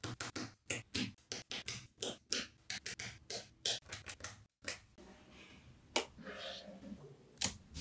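Small magnetic balls clicking as they snap together and are set in place: a rapid series of sharp clicks, a few a second, with a brief pause about halfway through.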